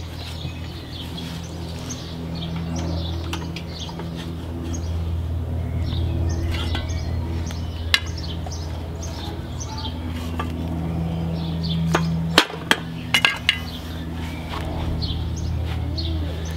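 Son of Hibachi portable charcoal barbecue clinking as it is unlatched and swung open, its cast-iron grills giving a few sharp metal clinks about halfway through and again two-thirds of the way in. Birds chirp throughout over a steady low hum.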